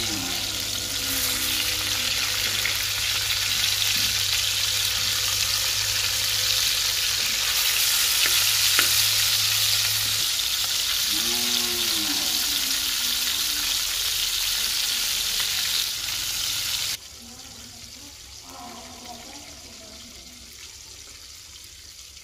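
Fish pieces sizzling in hot oil in an iron tawa, a loud steady frying hiss. About three-quarters of the way through it cuts off suddenly, leaving a much quieter background.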